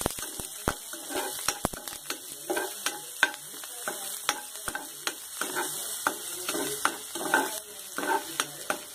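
Chopped onions sizzling in hot oil in a pan, stirred with a metal spoon that scrapes and clicks against the pan many times, irregularly.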